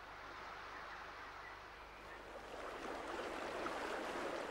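Rushing water of a rocky mountain river running over boulders: a steady noise that swells louder about halfway through.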